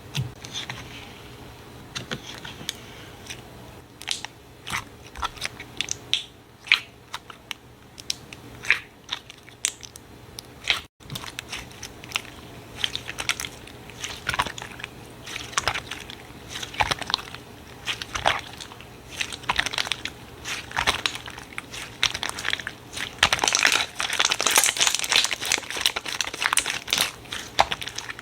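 Slime being squeezed and poked by hand, giving irregular sticky clicks and pops, with a denser run of crackling near the end.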